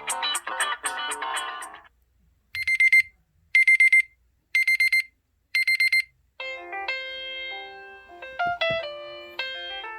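LG X2 (K30) phone alarm tones played in turn. A busy musical tone ends about two seconds in. Four bursts of rapid, high electronic beeps follow about a second apart, like a digital timer alarm, and a melody of piano-like notes begins about six and a half seconds in.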